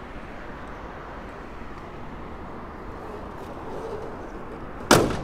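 Nissan Skyline GC110's 2-litre inline-six idling steadily, then near the end the heavy hood is slammed shut with one loud bang.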